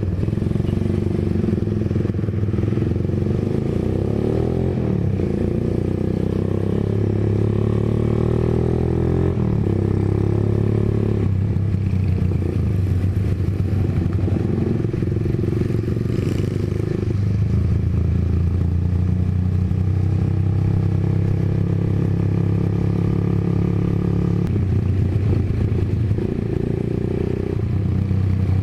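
Single-cylinder four-stroke engine of a 1997 Honda GL Pro motorcycle running under way, its note shifting in steps several times as the speed changes.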